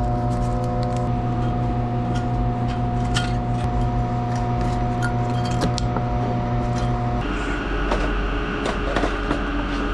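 Steady machine hum with clicking, changing abruptly to a different machine noise about seven seconds in.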